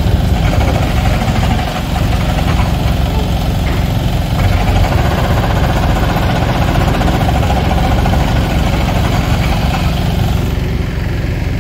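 Diesel engines of demolition plant running steadily: a loud, even drone with no breaks.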